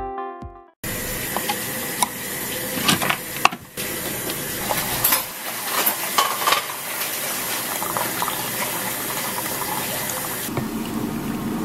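Single-serve coffee brewer running and pouring a thin stream of coffee into a stainless steel mug: a steady rushing pour with scattered clicks.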